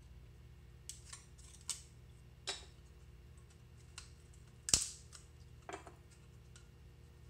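Light clicks and knocks of a wooden handle being handled and bumped at a bench vise: a handful of scattered taps, with one sharper, louder knock near the middle. A steady low hum runs underneath.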